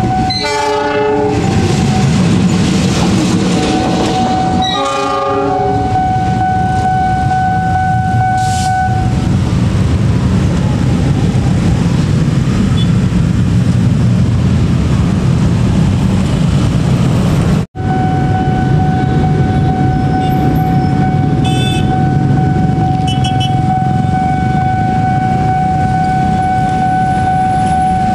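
Locomotive horn sounding two short blasts, one right at the start and one about five seconds in, over the steady rumble of a passing train. A steady level-crossing warning tone sounds through much of it and breaks off briefly about 18 seconds in.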